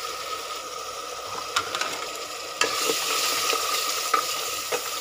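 Onion and spice masala sizzling in hot oil in a pressure cooker pot, the ground spices just tipped in, with sharp knocks and scrapes of a utensil against the metal pot as it is stirred. The sizzle gets louder about two and a half seconds in.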